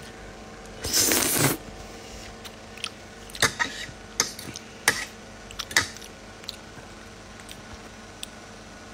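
Eating sounds at a meal of spaghetti: a short loud rustling scrape about a second in, then a handful of sharp clicks and taps, like a fork on a plate, between about three and six seconds in.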